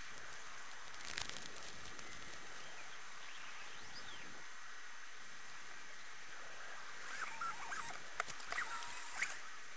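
Steady background hiss with a faint, constant high tone through it. A few faint, scratchy clicks come about a second in, and a cluster of them from about seven seconds in.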